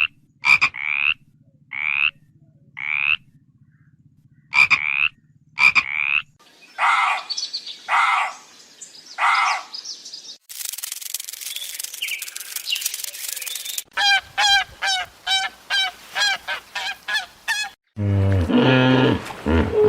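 A run of different animal calls, one short recording after another. First come short calls repeated about once a second over a low hum, then three longer calls and a few seconds of hissing. After that comes a quick run of chirps, and a deeper call near the end.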